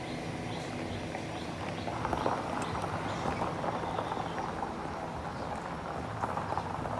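Footsteps crunching on a sandy gravel path, an irregular run of short crunches.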